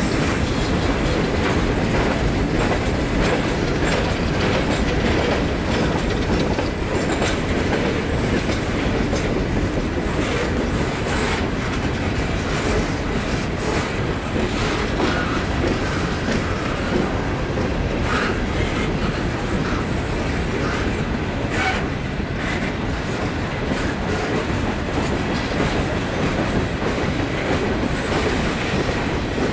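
Norfolk Southern coal gondola cars of a freight train rolling past: a steady rumble of steel wheels on rail, with a running clickety-clack as the wheels cross rail joints.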